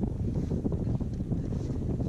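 Wind buffeting the microphone: a steady, low rushing noise.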